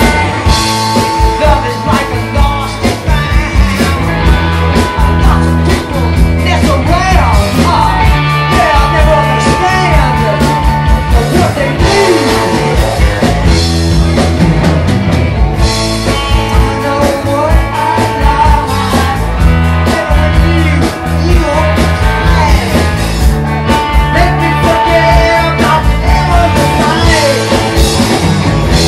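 Live rock band playing loudly: electric guitar, bass guitar and drum kit, with a steady driving drum beat throughout.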